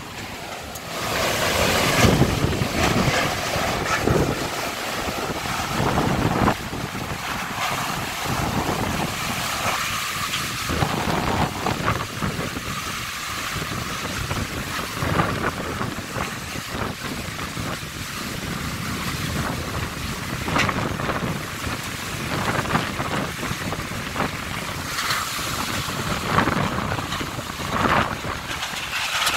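Heavy rain falling in strong, gusting wind, with the wind buffeting the microphone in surges.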